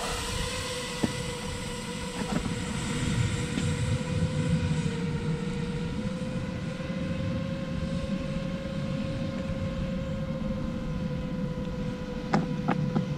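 A 7-inch FPV quadcopter's Brother Hobby 2507 motors and Gemfan 7040 props running at a steady cruise while it climbs: a sustained whine over a rough low rushing noise. The pitch creeps slightly higher about five seconds in.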